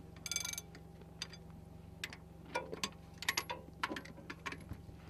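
A wrench and socket working the hub bolts of an M1 Abrams tank's road wheel, metal on metal: a run of quick metallic ticks near the start, then scattered clicks and clinks. A steady low hum runs beneath.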